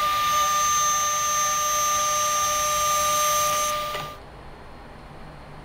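Small milling machine's spindle running with a steady high whine while an end mill cuts a slot in an ebony handle, then switched off; the sound stops about four seconds in, leaving only a faint low hum.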